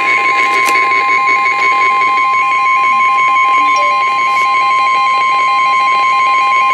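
NOAA Weather Radio warning alarm tone: a loud steady 1050 Hz tone, with a second alarm beeping in rapid alternating pulses over it. The tone signals that a warning, here a severe thunderstorm warning, is about to be read.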